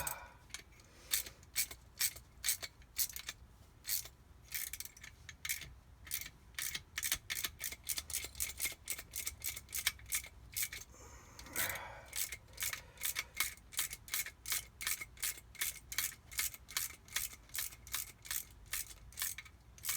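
Hand tool working on the metal jet-ski pump in quick repeated strokes, about two to three a second, with short pauses between runs.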